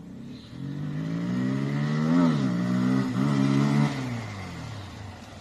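Bajaj Pulsar 220's single-cylinder engine revved twice: the pitch climbs to a peak about two seconds in, dips, climbs again, then drops back toward idle. The air filter has been taken out of its airbox to change the intake sound.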